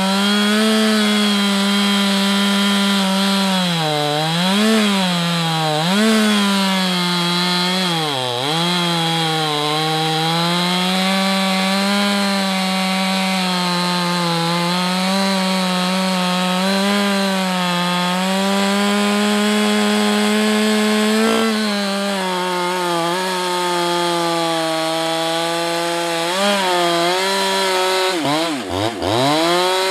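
Husqvarna 365 X-Torq two-stroke chainsaw running flat out as it cuts through a thick stem of well-seasoned sycamore. Its pitch sags briefly a few times as the chain bogs under load. Near the end the revs drop and pick up again several times in quick succession.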